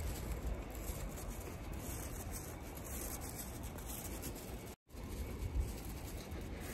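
Faint, steady outdoor background noise with no distinct event, picked up by a handheld phone microphone; it cuts out for an instant about five seconds in.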